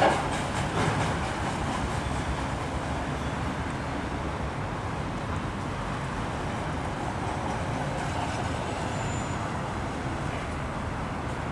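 Freight train of autorack cars rolling past: a steady rumble of steel wheels on rail, with a few louder clacks in the first second.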